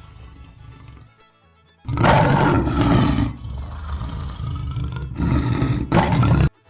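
Lion roaring: a string of loud, rough calls in several surges starting about two seconds in, cut off abruptly near the end, with background music beneath.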